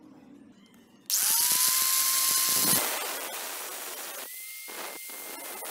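Angle grinder with a thin cutting disc switched on about a second in, its motor whine rising quickly to speed, then cutting into a screwdriver's steel shaft with a loud, hissing grind.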